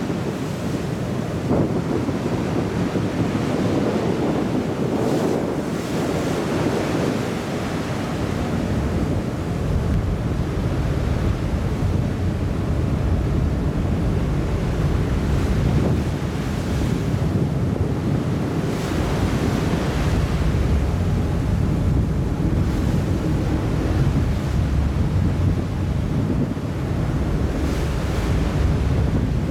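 Wind buffeting the microphone over the rushing wash of a cargo ship's bow wave as it runs at sea, with a steady low rumble underneath and gusts that come and go.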